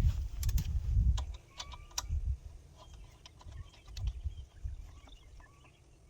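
Light clicks and knocks from handling a garden hose and its fitting at a pressure washer pump: a run of sharp clicks in the first two seconds, with low thumps, growing quieter toward the end.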